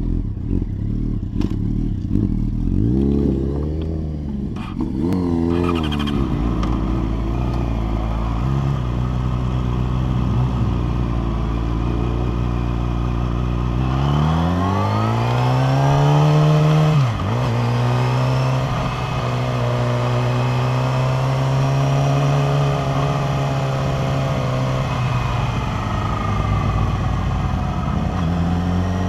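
Yamaha R6 sportbike's inline-four engine idling, with two quick throttle blips early on. About halfway through it revs up as the bike pulls away, dips briefly on a gear change, then runs steadily at low revs in second gear.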